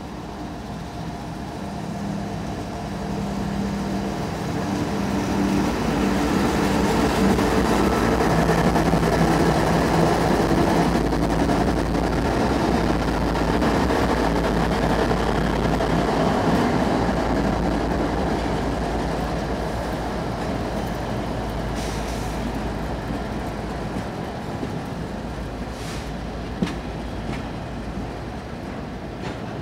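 CSX diesel locomotive approaching and passing with its engine running, followed by the steady rolling rumble and clatter of an intermodal train's cars carrying trailers and containers. The sound builds to its loudest as the locomotive goes by, about a third of the way in, then eases off as the cars roll past, with a few sharp clicks later on.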